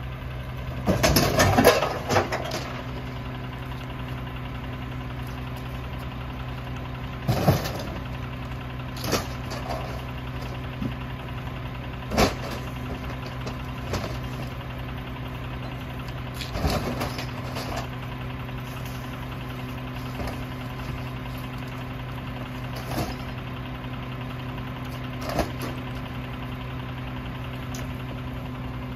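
Mack LR rear-loader garbage truck's diesel engine idling steadily, with loud clattering bangs as bulk junk is thrown into the Heil rear hopper: a burst of crashes about a second in, then single knocks every few seconds.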